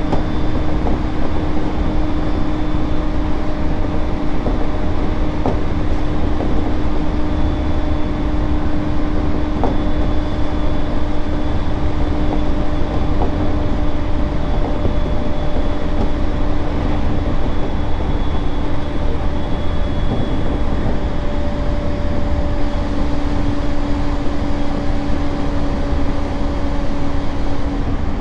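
Inside a JR East E231-series commuter train running at steady speed: a loud, even rumble of wheels on rail with a constant low hum and a faint high whine held at one pitch, and a couple of light clicks.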